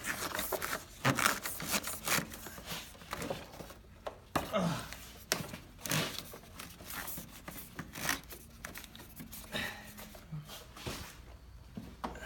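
Wiring and plastic parts rubbing and scraping as a wire is worked by hand through a tight gap in an ATV's frame, in irregular short scrapes and knocks.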